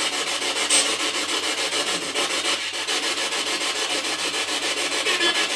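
Spirit box sweeping through radio frequencies: choppy radio static that pulses evenly several times a second.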